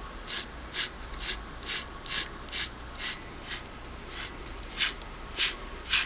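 Singer PA9-8 sewing machine motor's armature turned by hand at its worm-gear shaft, the brushes giving a light scraping stroke on the commutator about twice a second. It runs smooth, which the owner takes as a sign that there are still brushes in it and the bearing is okay.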